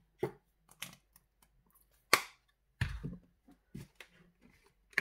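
Plastic flip-top mayonnaise squeeze bottle being handled and squeezed over a tortilla wrap: a few sharp clicks and snaps, the loudest about two seconds in, with a short rough squirt-like burst just after it.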